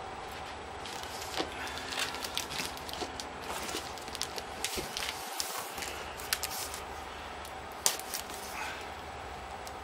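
A cardboard box being handled and opened: irregular crackles, scrapes and clicks of cardboard and packing tape, with a sharper click about eight seconds in. Under it runs the steady noise of an electric fan.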